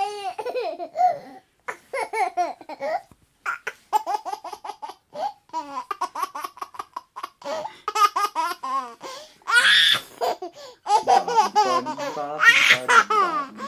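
A baby laughing in a string of short giggles and chuckles, breaking into louder, shrill laughs about ten seconds in and again near the end.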